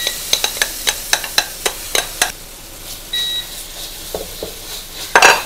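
Banana pancake batter sizzling in hot oil in a frying pan, with a quick run of sharp utensil clicks and taps against the pan and bowl as the batter goes in. A short electronic beep about three seconds in, and a louder scrape near the end.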